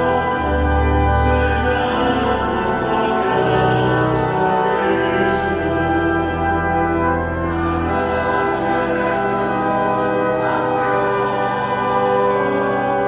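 A choir sings a Spanish communion hymn, accompanied by a Walcker pipe organ playing sustained chords over deep pedal bass notes.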